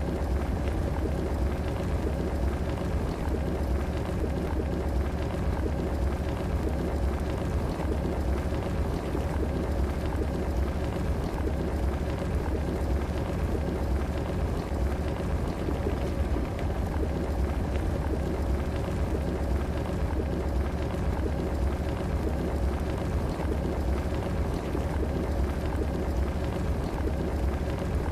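Electric kettle heating water: a steady churning water noise with a deep low rumble underneath and a faint steady whine.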